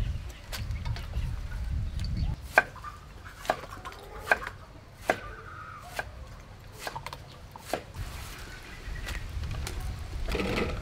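Large knife chopping a head of cabbage on a round wooden chopping board: separate sharp knocks of the blade into the board, roughly one a second, over a low rumble that comes and goes.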